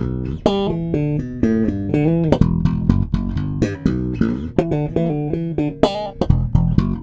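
Jones SM1 electric bass with a Glockenklang preamp, played as a quick run of plucked notes, several a second, with sharp attacks and some notes ringing together.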